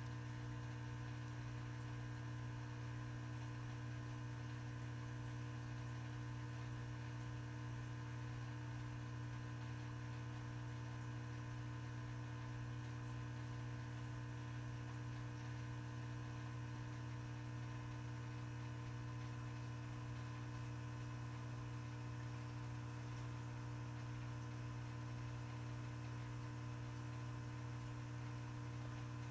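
Steady low electrical hum of aquarium equipment, running without change.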